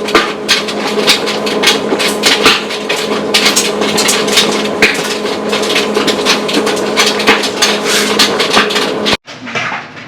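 Clothes dryer running with a steady hum and irregular knocking and clattering from the tumbling load. It cuts off suddenly near the end, leaving a few lighter knocks.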